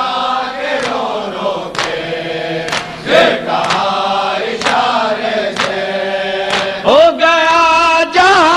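Men's voices chanting an Urdu noha refrain in long, bending notes, with the sharp slaps of matam (hands beating on chests) striking about once a second.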